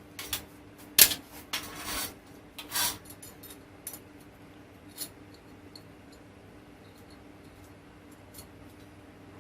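Small metal parts of an antenna mount clinking and scraping as they are handled and fitted together: a quick run of clicks and rubs in the first few seconds, the loudest about a second in, then only a few scattered ticks.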